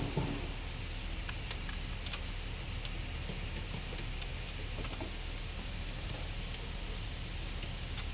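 Sparse, irregular light metallic clicks and clinks of hand tools working on the engine mount's nuts and bolts, over a steady background hum.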